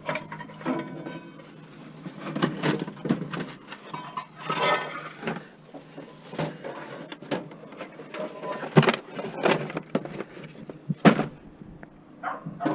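Irregular knocks, clanks and scrapes of scrap items being shifted and handled, with two louder bangs about nine and eleven seconds in.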